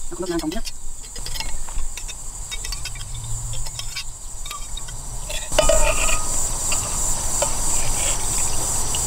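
Steady high trilling of insects, crickets, with scattered light clinks and scrapes of a metal spoon in a copper saucepan as food is scooped out. The overall sound grows louder a little past halfway, as the pan is tipped over a metal food jar.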